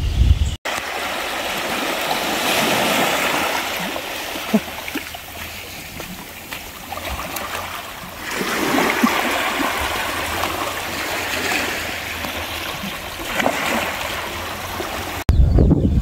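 Small waves lapping and washing over rocks and weed at the water's edge, swelling and easing in gentle surges. Wind rumbles on the microphone for a moment at the start and again just before the end.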